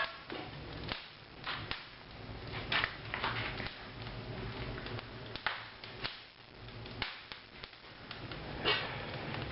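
Wood fire crackling in a newly built fireplace during a test firing: irregular sharp snaps and pops over a steady low rumble.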